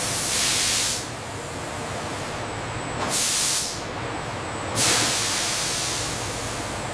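Bursts of hissing pressurized air, three times, over a steady noise of machinery.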